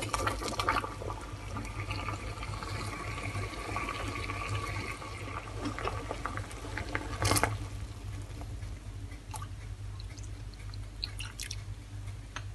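Water bubbling at a boil in a small stainless-steel saucepan on an electric hob, with a tea bag steeping in it. There is a sharp knock about seven seconds in.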